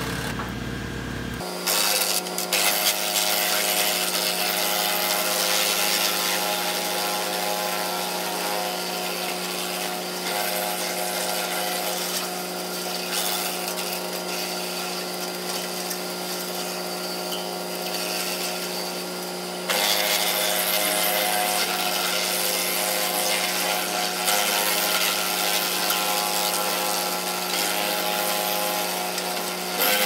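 Tractor-driven Woodland Mills wood chipper running at speed and chewing through leafy brush, a steady machine hum under the noise of branches being chipped. It grows louder and busier about two seconds in and again about twenty seconds in, as more brush goes into the hopper.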